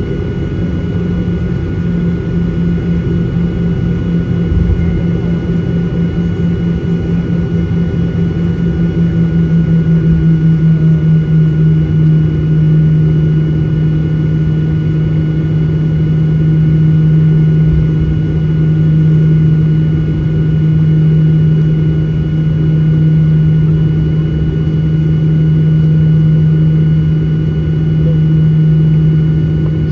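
Inside the cabin of a Boeing 737-800 taxiing after landing, its CFM56-7B jet engines at taxi idle. They make a steady low drone with faint higher whines above it. The drone throbs quickly about a third of the way in, then rises and falls in slow swells every few seconds.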